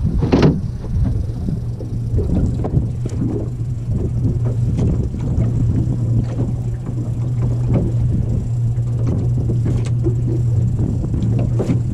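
A motorboat's engine running at a steady low drone under way, with irregular splashes and knocks of water against the hull; a loud thud about half a second in.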